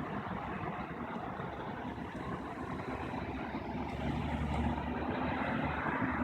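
Motor vehicle engines running and idling in a steady mix, with a deeper engine rumble swelling about four seconds in.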